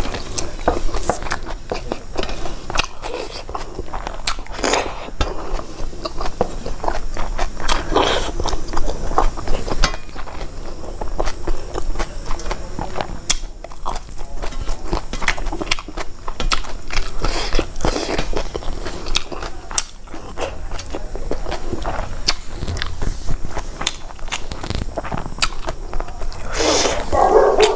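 Close-up mukbang eating sounds: wet chewing and mouth smacks with small clicks, and fingers scraping food across a steel plate. Near the end a louder pitched sound comes in.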